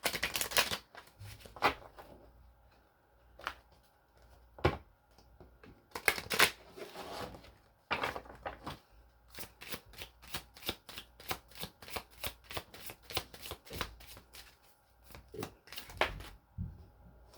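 Tarot cards being shuffled by hand: scattered flicks and slaps of the deck, then a long run of rapid card flicks about halfway through.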